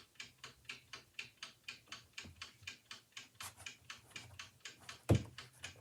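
Robeson 20-inch box fan coasting down after being switched off, ticking faintly and evenly about four times a second as the blades turn slowly. A louder knock about five seconds in.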